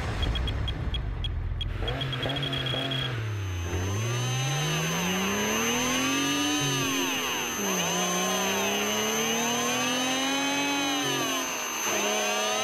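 Electric fishing reel's motor whirring, its pitch gliding up and down as it speeds up and slows. In the first few seconds, a quick run of short electronic beeps and then a held beep sound over a low rumble.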